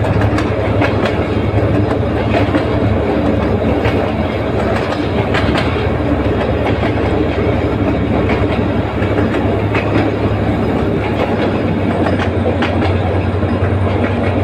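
Passenger train running along the track, heard from the moving carriage: a steady loud rumble with a low hum and wheels clicking over the rail joints.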